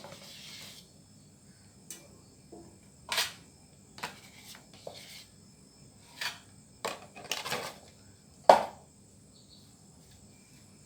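Scattered knocks and clicks of kitchen utensils and containers being handled, the loudest about eight and a half seconds in, over a faint steady high-pitched tone.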